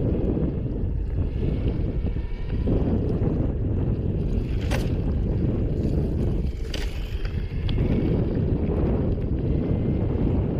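Wind buffeting the microphone in a steady low rumble, as from fast movement on a mountainboard, with two sharp knocks about four and a half and six and a half seconds in.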